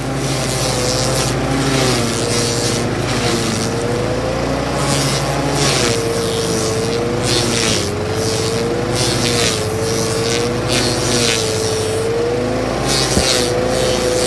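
Bluebird SG13GT stump grinder's 13 hp petrol engine running hard while its cutting wheel grinds into a tree stump. Its pitch wavers up and down as the wheel takes the load, with repeated gritty, hissing bursts of the teeth chewing through the wood and throwing chips.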